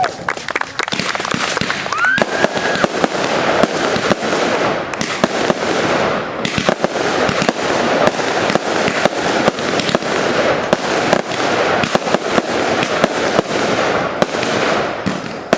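Fireworks display going off in a rapid, continuous barrage of bangs and crackling, with a rising whistle about two seconds in.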